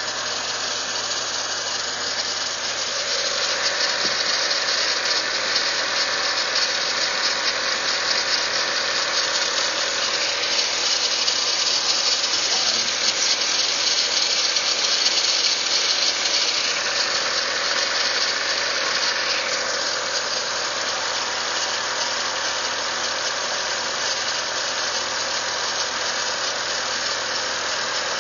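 Audi TT engine running steadily, its sound carrying a lot of high hiss; it grows a little louder a few seconds in and eases back about two-thirds of the way through.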